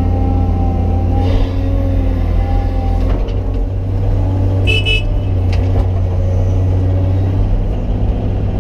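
Cat 320D excavator's diesel engine running steadily, heard from inside the cab while the machine swings and dumps a bucket of dirt into a dump truck, with a few short knocks. A short high beep sounds about five seconds in.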